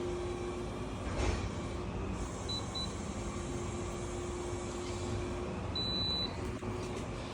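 Electric fan-forced wall heater running, with a steady rush of air and a faint hum. Two short high electronic beeps come about two and a half seconds in, and a longer beep about six seconds in. A short knock sounds about a second in.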